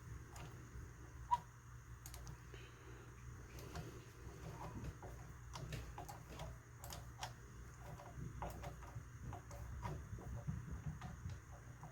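Faint, irregular light clicks and taps of small metal parts and tools being handled while a rifle is put back together, over a low steady hum.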